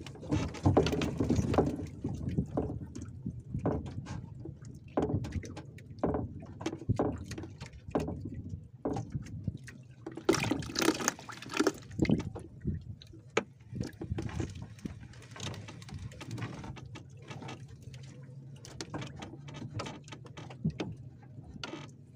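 Water splashing and dripping as a wet fishing net is hauled by hand into a small boat, with irregular knocks. The biggest splash comes about ten seconds in.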